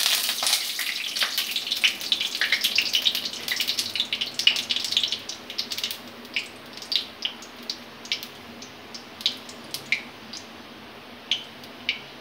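Cumin seeds, a dried red chilli and bay leaves sizzling and crackling in hot mustard oil in a kadai. The dense sizzle dies down about halfway through to occasional sharp pops as the tempering fries dark.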